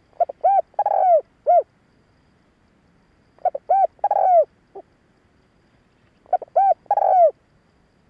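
Spotted dove cooing, its song used as a decoy to call in wild doves: three phrases about three seconds apart, each a few short hollow notes followed by a longer, drawn-out coo.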